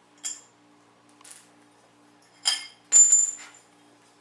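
Metal clinks of a bolt being taken out of the steel hunting chair's tubing: four sharp clicks, the loudest about three seconds in with a brief high ring.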